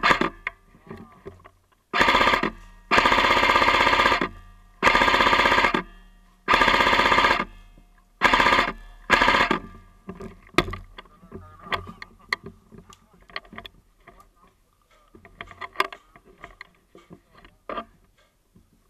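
Airsoft guns firing full-auto: six loud bursts of rapid shots, each lasting up to about a second, then scattered single shots and clicks.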